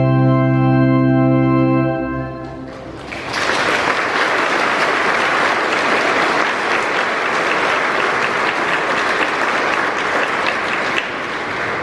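Choir and organ hold a final chord that fades out about two to three seconds in. Steady applause follows and carries on to the end.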